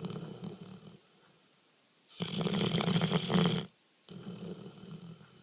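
Sleeping Labrador snoring: one loud snore about two seconds in, lasting about a second and a half, between quieter breaths before and after.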